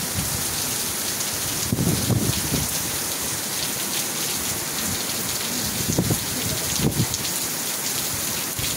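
Heavy rain pouring steadily onto pavement, a dense even hiss. A few short low rumbles rise through it, about two seconds in and again around six and seven seconds.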